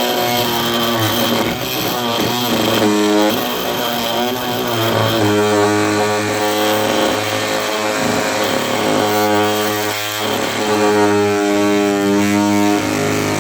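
A Ryobi oscillating multi-tool runs continuously while its blade cuts through a floorboard nail. The motor's whine holds steady but shifts in pitch several times as the blade bears on the nail and eases off.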